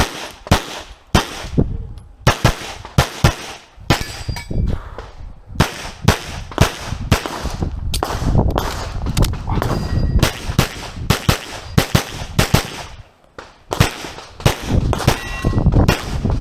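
Rapid handgun shots fired in quick pairs and strings during a practical-shooting stage, about two dozen in all with a short break a little after the middle. Several of them are followed by a metallic clang and ringing of steel targets being hit.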